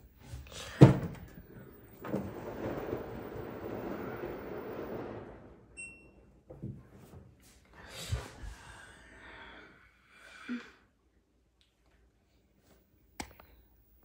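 LG washing machine in use: a loud thunk about a second in, then a few seconds of rushing, churning noise. A short high electronic beep follows, then a few scattered knocks and a click.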